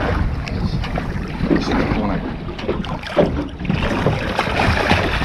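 Wind buffeting the microphone over water splashing and slapping beside a small boat, as a hooked shark thrashes at the surface next to the hull.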